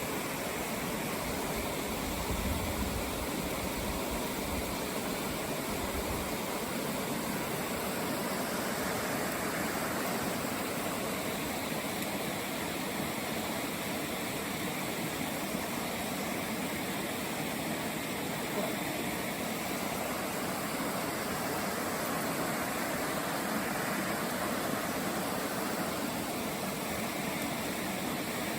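Mountain stream rushing over rocks: a steady, even wash of water noise, with a low rumble underneath for the first several seconds.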